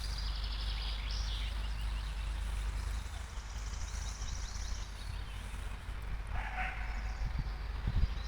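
Small songbirds singing: rapid high trills, repeated twice, and a lower call about six and a half seconds in, over a steady low rumble.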